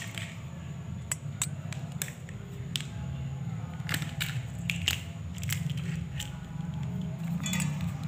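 Small irregular clicks and crunches of thin insulated wire being stripped and handled by hand, over a steady low hum.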